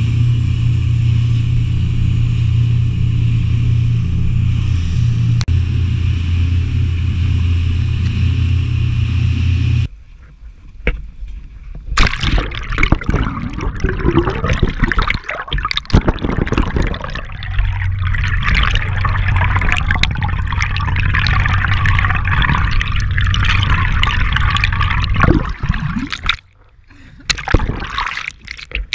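A boat's motor running steadily under way. About ten seconds in, it gives way to rushing, gurgling water and splashes heard through a camera held underwater beside the moving boat, with a faint steady hum beneath.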